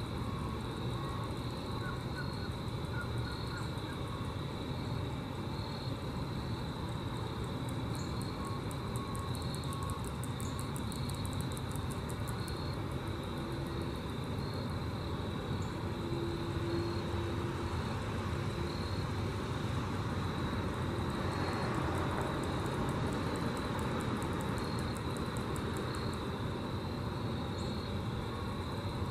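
Grasshoppers stridulating: trains of rapid, high, dry ticks that come and go, over a steady low rumble.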